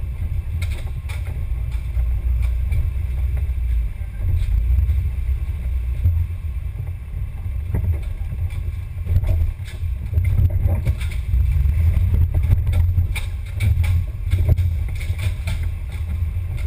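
Low rumble with frequent knocks and jolts from a camera mounted on an off-road vehicle's hood as it crawls over a rough, muddy trail.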